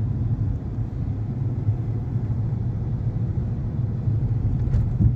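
Steady low rumble of a vehicle on the move, its road and engine noise.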